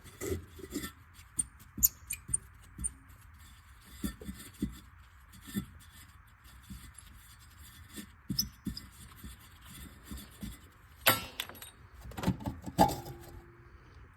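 Scattered light metallic clinks and taps, with a louder cluster of knocks near the end: the wing nut being undone and the sheet-metal air cleaner lid handled and lifted off a 318 V8's air cleaner housing.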